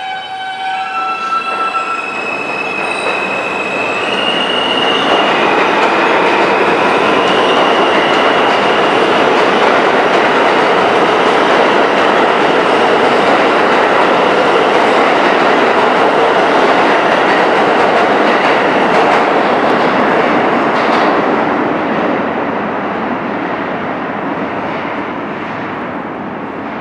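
R160A-2 subway train pulling out of a station. Its electric traction motors whine in steps rising in pitch as it accelerates, under a growing rumble of steel wheels on rail with some squeal. The rumble is loudest midway and fades over the last few seconds as the train leaves.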